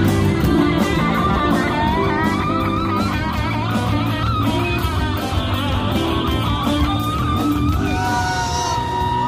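Band music led by a Stratocaster-style electric guitar playing a melodic solo with bent, wavering notes, ending on one long held note near the end, over bass guitar and drums.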